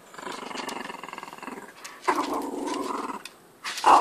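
Small long-haired mixed-breed dog growling with a rubber ring toy in its mouth while it is tugged from him: two long growls, the second starting about two seconds in, and a louder one breaking out near the end. It is possessive growling over his toy.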